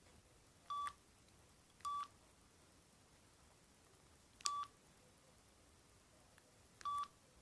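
Mitsubishi MT401 mobile phone's keypad beeping as the PIN code is keyed in: four short beeps, all at one pitch, unevenly spaced about one to two and a half seconds apart. A key click is heard with the third beep.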